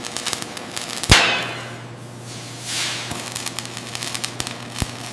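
Arc welding on steel: irregular crackling and spitting throughout. A sharp crack about a second in is followed by a fading hiss, and a softer hiss swells up again near the middle.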